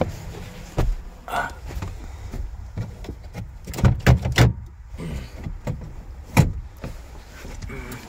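Scattered knocks and clicks with a brief rustle, from a phone being handled and brushed against cloth seats in a pickup's cab: a cluster of knocks about four seconds in, and a single sharp one a couple of seconds later.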